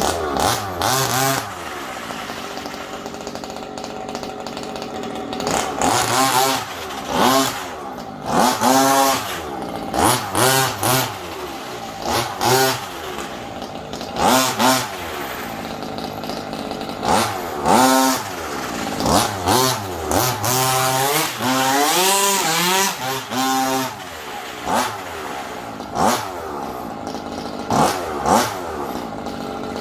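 Small two-stroke petrol engine of a 1/5-scale MCD rally car idling and blipped up in short revs over and over, more than a dozen times, its pitch rising and falling with each blip.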